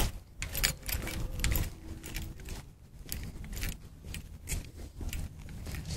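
Irregular small clicks, rattles and rustles of handling noise as a handheld phone is carried while walking.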